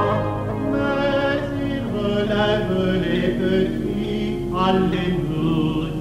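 Background music: choral singing with held, sustained notes.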